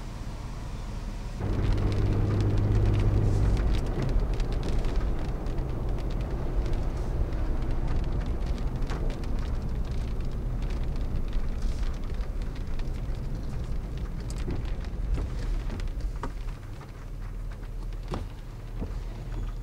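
Car being driven, heard from inside: engine hum and road noise, with many scattered light ticks. The sound grows louder about a second and a half in, with a strong steady engine tone for a couple of seconds, and drops to a quieter hum near the end.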